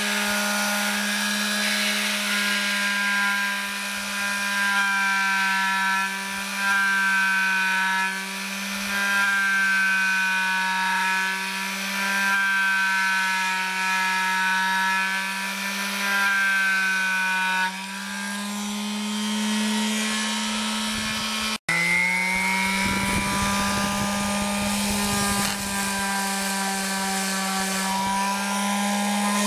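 Electric detail sander running against a wooden window frame: a steady motor hum with a stack of overtones, its pitch wavering slightly. It cuts out for an instant about two-thirds of the way through, then runs on.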